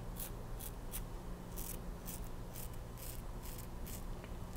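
Soluna safety razor with a KAI blade scraping stubble through shaving lather in a run of short, quick strokes, about two a second.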